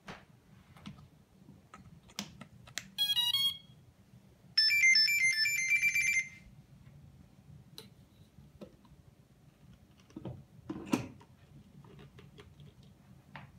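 Quadcopter sounding its electronic power-up tones: a short quick run of beeps, then a longer stepped melody of beeps lasting under two seconds. These signal that the flight electronics have booted. Light clicks and knocks of the airframe being handled come before and after.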